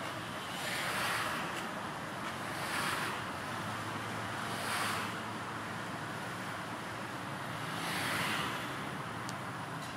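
A car driving slowly, heard from inside: steady road and engine noise, with rushing wind noise swelling up four times.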